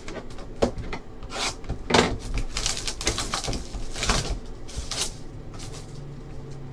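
Clear plastic shrink-wrap being torn and crinkled off a sealed trading card box, in irregular crackles and rustles, with the light knocks of cardboard boxes being handled.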